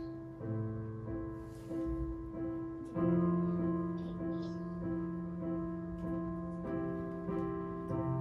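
Instrumental music on a piano or keyboard: held bass notes and chords that change every few seconds, with a steady figure of repeated notes above them.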